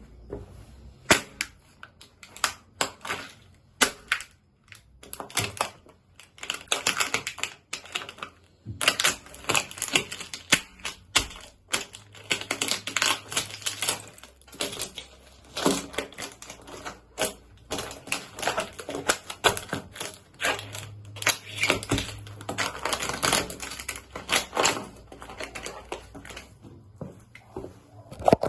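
A small plastic fan being crushed under boots: a long, uneven run of sharp cracks, snaps and crunches, coming in dense clusters with brief pauses between.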